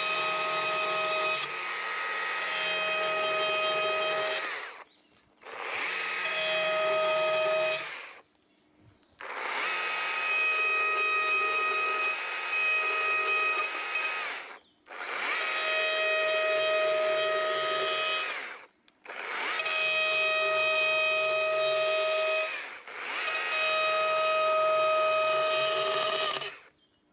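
Small gas chainsaw running at high revs while cutting into a wooden board to define carved letters. It comes in six stretches of a few seconds each, with short, abrupt gaps between them.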